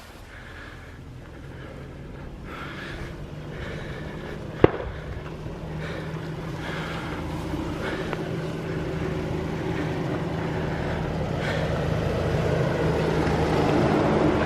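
Jeep engine approaching, growing steadily louder as it climbs toward the listener, with one sharp knock about four and a half seconds in.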